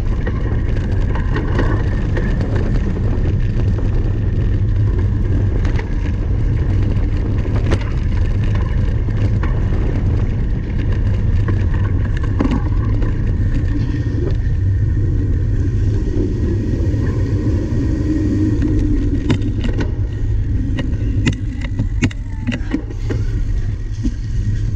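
A cyclocross bike ridden over rough ground: a steady low rumble of wind and tyres on the microphone, with scattered clicks and rattles from the bike that come thicker near the end.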